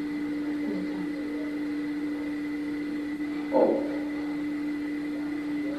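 A steady electrical hum with a fainter high tone over a light hiss, and one short sound about three and a half seconds in.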